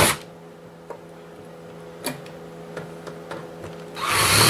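Scattered light clicks and taps of tools and screws being handled on the PS4's plastic casing, over a faint steady hum, then a loud half-second burst of rushing noise near the end.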